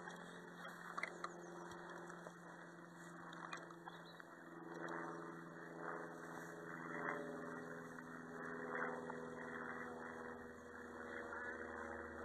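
Footsteps and gear brushing through tall dry grass in uneven swells, over a faint steady mechanical hum. A couple of light clicks come about a second in.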